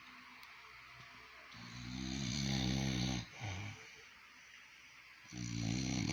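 An old man snoring in his sleep: one long snore starting about a second and a half in, a pause, then a second snore beginning near the end.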